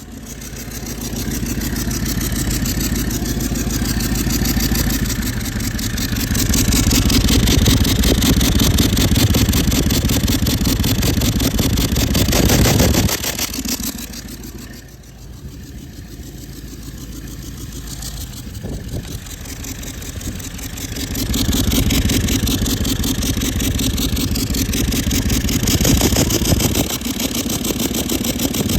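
Toyota LandCruiser 200 series 1VD-FTV V8 turbo-diesel engine running and being revved, with a failed turbocharger. It builds up over the first couple of seconds, drops back sharply about halfway through, and rises again later on.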